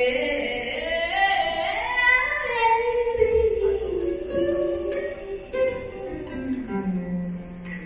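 A woman singing a blues song live, backed by an orchestra and jazz band; her line steps down in pitch through the phrase and settles on a low held note near the end.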